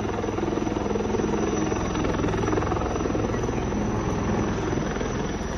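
Helicopter running steadily, with a fast, even rotor beat.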